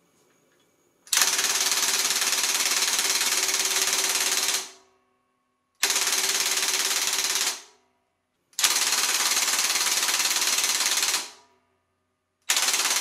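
Ryobi 18V One+ cordless impact wrench hammering on its lowest speed setting against a torque tester: four runs of rapid, even blows, each winding down as the trigger is released. The first runs tighten and the last, near the end, loosens.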